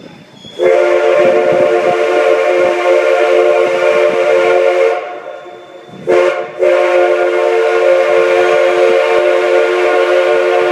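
A steam locomotive's chime whistle sounding a loud long blast, a short blast, then another long blast, over the rumble of the moving train.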